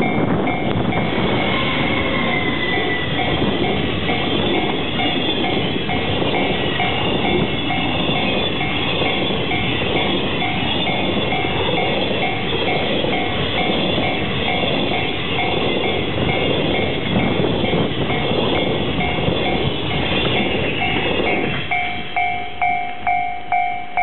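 Container wagons of a freight train rolling past on the rails in a steady rumble, which falls away near the end as the last wagon clears. Throughout, a level-crossing warning bell rings in a steady repeating pattern, about two or three strokes a second, standing out clearly once the train has passed.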